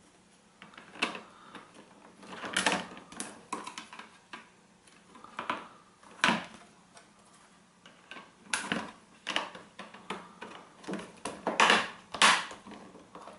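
Plastic back cover of a Kobo eReader being handled, laid on and pressed down, with irregular sharp clicks as its clips snap into the frame, mixed with rustling.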